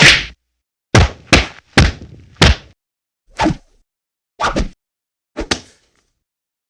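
Kung fu fight sound effects: a string of about ten sharp punch and kick hits, some in quick pairs, each followed by silence.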